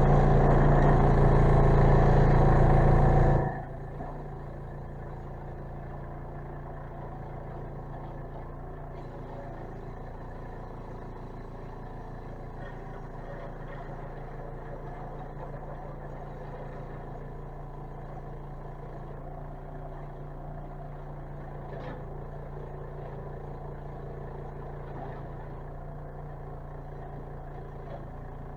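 Scroll saw running with a homemade sandpaper blade fitted, used to sand the inside of cut-outs. It is loud for the first three seconds or so, then drops suddenly to a much quieter steady running hum for the rest of the time.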